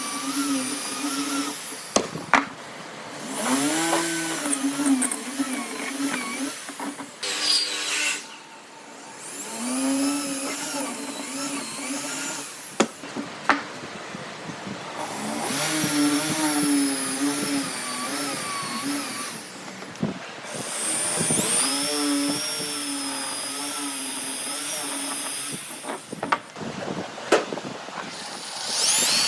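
Electric power tool working wood: its motor runs in several spells, its pitch sagging and recovering as it takes and sheds load, with a few sharp knocks in between.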